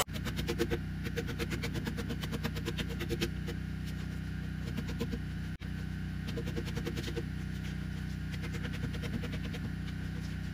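Claw hammer knocking out the saw-kerfed wafers of wood from a notch in a timber beam: rapid repeated knocks and wood chips breaking off, with a brief gap about halfway through. A steady low engine hum runs underneath.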